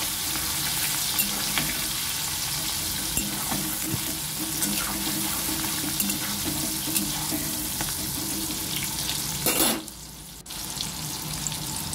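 Prawns sizzling and crackling in hot vegetable oil in a metal wok, with a spatula stirring and scraping the pan at first. The sizzle drops away briefly near the end, then comes back.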